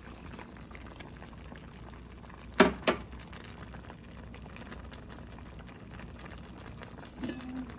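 Pot of vegetable broth simmering on the stove, a steady bubbling hiss, with two sharp knocks about a third of a second apart a third of the way in.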